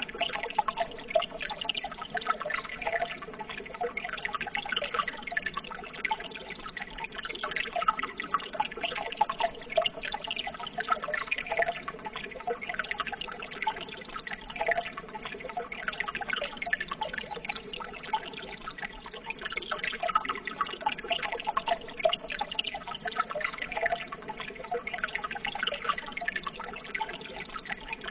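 Running water trickling and splashing steadily, with many small drips and splashes.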